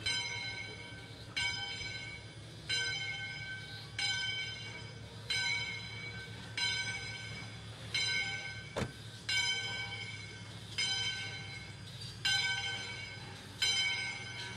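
Steam locomotive bell ringing steadily, one stroke about every second and a half, each stroke ringing out and fading before the next.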